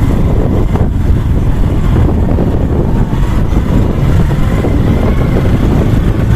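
A moving vehicle's steady low road rumble, with wind buffeting the microphone.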